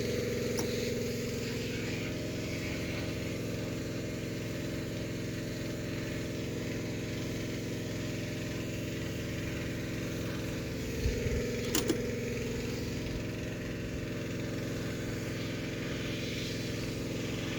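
Steady electrical hum from bench test equipment switched on to heat the picture tube's filaments, with a few small knocks about eleven to twelve seconds in.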